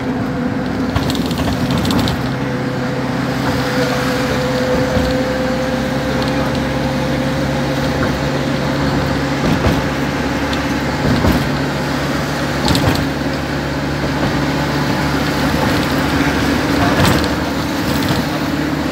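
Engine hum and road noise inside a moving vehicle at highway speed. The hum holds steady and climbs a little in pitch toward the end, with a few brief knocks from bumps in the road.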